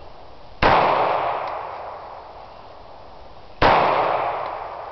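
Two shots from a Heckler & Koch HK45 .45 ACP pistol, about three seconds apart, each followed by an echo that fades over a second or more.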